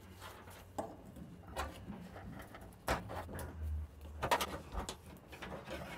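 Scattered light clinks, knocks and scrapes of a wrench and gloved hands handling a rusty steel fuel line where it passes through the cab floor grommet.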